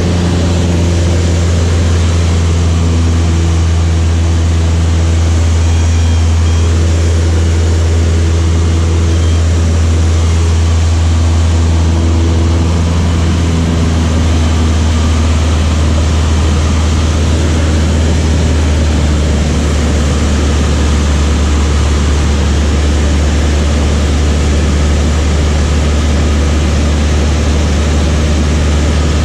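Light propeller aircraft's piston engine droning steadily, a strong low hum with faint higher tones that shift during the first half.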